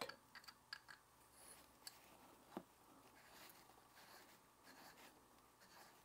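Near silence with a few faint clicks and soft scratching from fingers turning the clamp screw of an aluminium Ulanzi Claw camera clip, tightening it onto a backpack strap.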